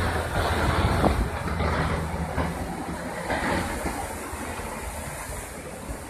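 Helicopter flying over the ocean: a steady low rotor and engine drone that slowly fades as it moves away.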